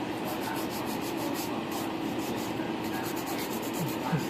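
Hand nail file rasping back and forth over acrylic nails in quick, regular strokes.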